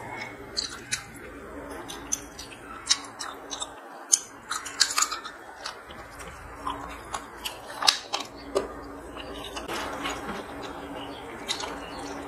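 Close-miked chewing and wet mouth sounds of a person eating rice and curry by hand: irregular sharp clicks and smacks, with her fingers mixing rice on the plate between mouthfuls.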